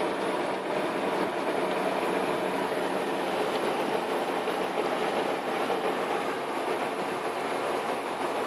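Cab noise of an old Toyota Land Cruiser on the move: steady engine and road noise.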